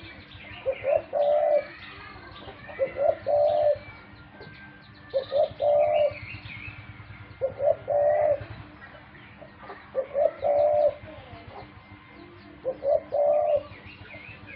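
Pet dove cooing: a short phrase of a couple of quick notes ending in a longer held coo, repeated six times about every two seconds, with faint chirps of small birds behind.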